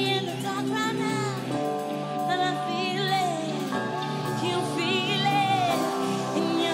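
Live pop music: a woman's voice sings a melody over the band's held chords.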